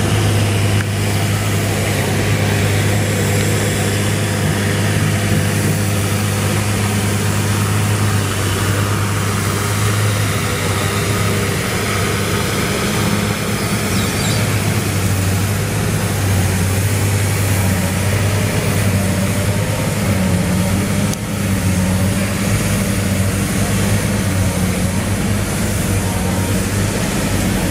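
Fendt farm tractor's diesel engine running at steady full load as it drags a weight-transfer sled in a tractor pull: a loud, even, deep drone.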